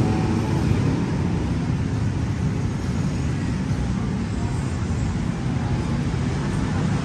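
Steady rumble of road traffic on a busy city street, with no single vehicle standing out.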